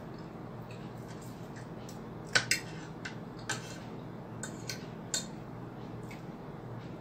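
Metal spoon and fork clinking and scraping against a plate while eating: about half a dozen sharp clinks in the middle of the stretch, the loudest about two and a half seconds in, over a steady low background hum.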